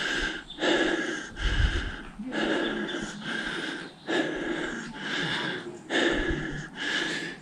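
A hiker breathing hard close to the microphone, a loud breath about every second, winded from the steep climb.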